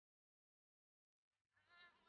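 Near silence, with a very faint, brief sound in the last moment.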